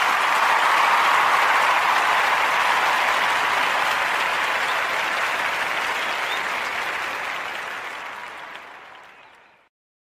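Crowd applause, a dense steady clapping that fades away over the last few seconds.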